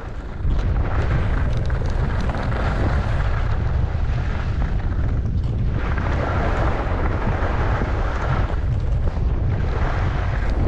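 Wind buffeting the microphone at skiing speed, a heavy steady rumble that gets louder about half a second in. Over it, skis scrape and hiss across the snow, swelling and fading three times as if with each turn.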